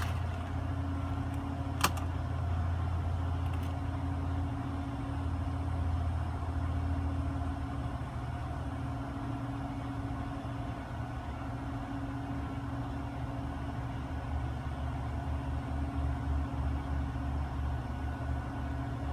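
Steady low mechanical hum with one sharp click about two seconds in.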